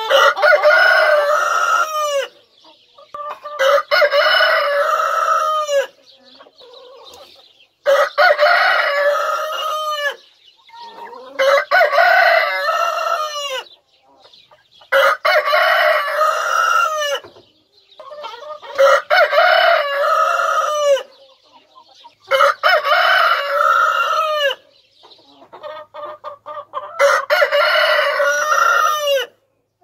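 Rooster crowing over and over: about eight long crows, one every three to four seconds. Hens cluck softly in the gaps between crows.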